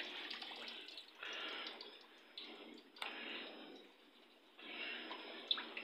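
Hot oil sizzling in a karahi as pakoras deep-fry, the sizzle swelling and fading several times.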